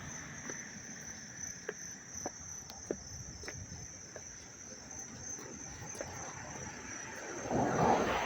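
Loud chorus of chirping insects: a steady, high, slightly pulsing drone. A few light clicks sound in the first half, and a rushing noise swells up near the end.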